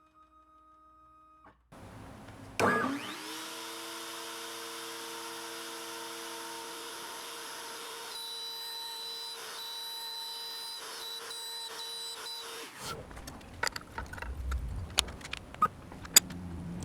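The router spindle of a Longmill MK2 hobby CNC spins up with a rising whine, then runs at a steady pitch while the machine cuts. It cuts off abruptly about 13 seconds in, and scattered sharp clicks and knocks follow.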